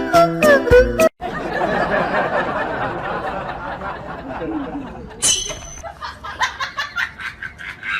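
A bit of children's music cuts off about a second in. Then come people's laughter and chatter, a short high squeal about five seconds in, and a run of quick clicks near the end.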